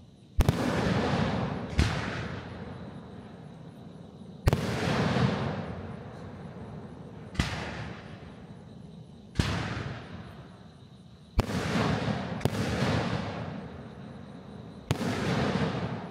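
Fireworks going off: about eight sharp bangs, one to three seconds apart, each trailing off over a second or two.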